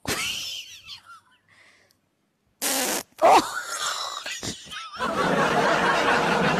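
A woman laughing, muffled behind her hand, loudest and most continuous in the last part; a short sharp burst of noise comes a little before the middle.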